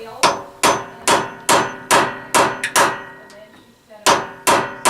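Hammer pounding on the 1951 General Electric refrigerator's door hinge pins, metal on metal with a short ring after each blow: about eight blows at roughly two a second, a pause, then three more. The pins are stuck fast and don't come out.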